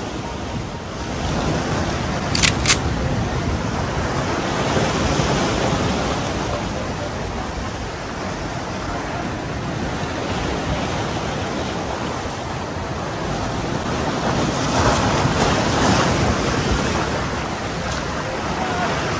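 Sea waves washing against shore rocks, a steady rushing noise that swells and eases. Two sharp clicks about two and a half seconds in.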